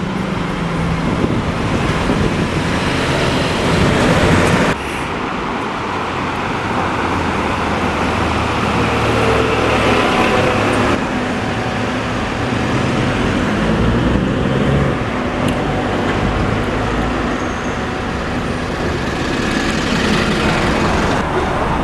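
Street traffic: a hybrid double-decker bus running past for the first few seconds, cut off abruptly about five seconds in, followed by steady noise of cars and other vehicles driving by.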